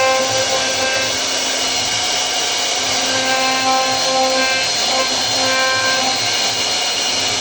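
CNC router spindle running and cutting wood: a steady whirring hiss with a whine that comes and goes.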